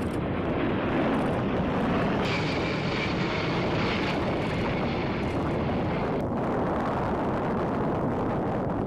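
A-10 Thunderbolt II's twin turbofan engines running with a steady rush. A high whine rides over it from about two seconds in and cuts off suddenly about six seconds in.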